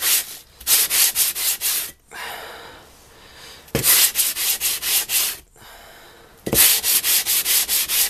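A 1,000-grit Japanese waterstone rubbed back and forth on wet coarse sandpaper to flatten it, a gritty scraping in quick strokes of about five a second. The strokes come in four short bursts with brief pauses between.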